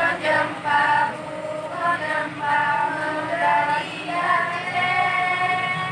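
A group of female voices chanting a Saman dance song in unison, in short sung phrases that open into a long held note over the last couple of seconds.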